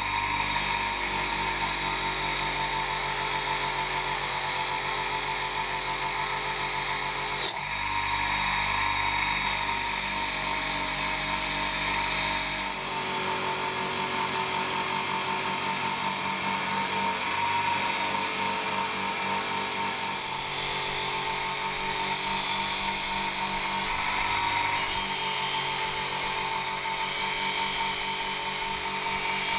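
Electric motor with a wire brush wheel running steadily, its hum under a continuous scratchy brushing as a rusty steel bayonet blade is pressed against the spinning wire to strip the rust.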